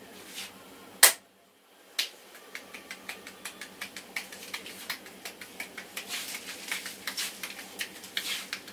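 Hands tapping and patting on the head in an Indian head massage: one loud sharp crack about a second in, a second crack about a second later, then a quick run of lighter taps at about five or six a second.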